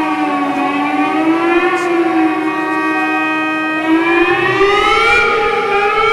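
A loud, sustained pitched tone with many overtones, siren-like, wavering slowly in pitch, holding steady for about a second in the middle, then gliding upward from about four seconds in.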